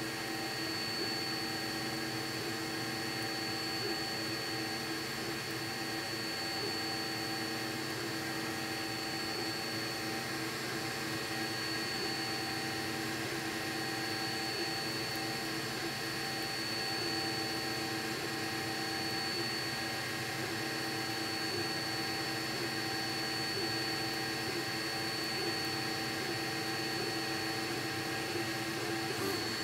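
Qidi Tech X-One 3D printer running: a steady fan whir under the stepper motors' tones, which waver and shift in pitch as the print head moves.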